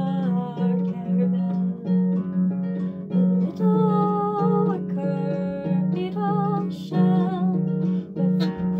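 A woman singing with vibrato while accompanying herself on a concert harp, plucked low notes sounding steadily under the voice.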